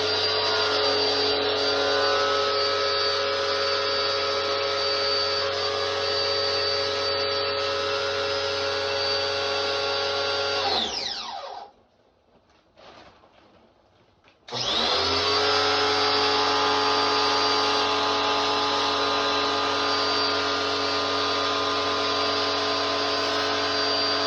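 An electric motor runs steadily at high speed with a whining hum. About eleven seconds in it is switched off and winds down, falling in pitch. After about three seconds it is switched back on and quickly spins up to the same pitch.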